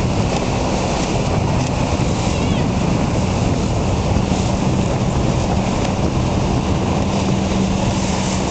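Wind buffeting the microphone over water and waves on open water, with a steady low hum that grows louder about halfway through.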